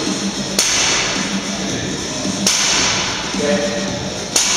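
Loaded barbell clanking sharply three times, about two seconds apart, as power snatch reps are cycled. Each strike leaves a short metallic ring of plates on the sleeves.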